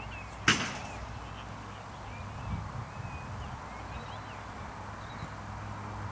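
A football being struck once, a single sharp knock about half a second in, over faint bird chirps and a low steady background rumble.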